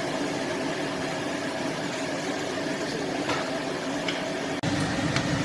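Steady kitchen hum over a pot of salmon simmering on an electric stove, with a few faint ticks.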